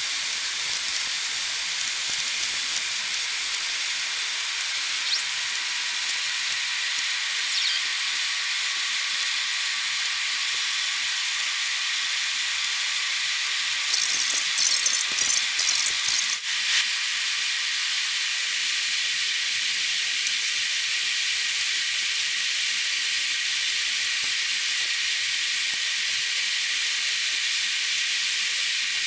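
Steady rushing hiss of air and engine noise inside an Airbus A380 passenger cabin in flight. About halfway through comes a short burst of clattering, ending in a sharp click.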